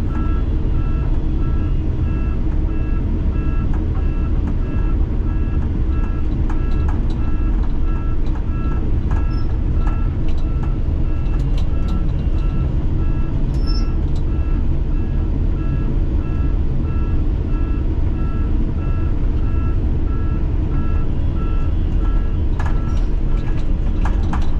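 Heavy diesel engine running steadily under a backup alarm beeping at an even rate throughout: the machine is reversing.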